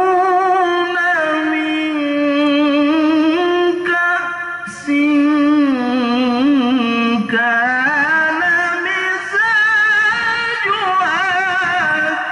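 A male qari reciting the Qur'an in the melodic tilawah style into a microphone: long held, finely ornamented phrases that rise and fall, with a short breath pause about five seconds in.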